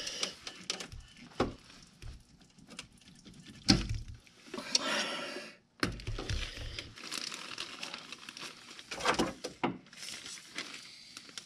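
Hands handling rubber hoses and wiring in a car's engine bay: scattered light knocks and rustling, with a sharper knock about four seconds in.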